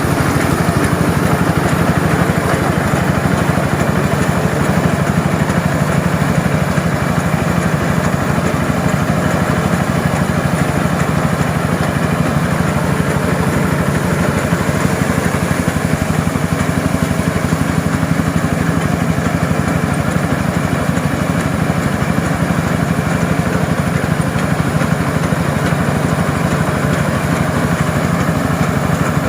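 Engine of a QUICK QH 11 mini rice harvester running steadily.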